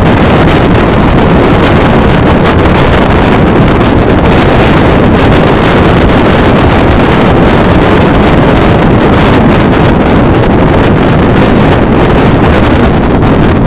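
Strong wind buffeting the microphone on a sailing yacht under way in choppy water: a loud, steady rushing.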